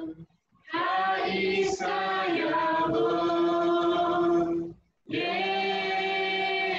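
A small group of voices singing a worship song together, unaccompanied, in long held phrases. There is a short break between phrases about half a second in and again near five seconds.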